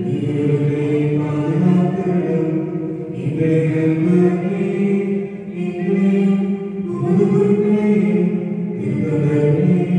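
Voices singing a slow devotional chant in long held notes, phrased in lines of two to three seconds.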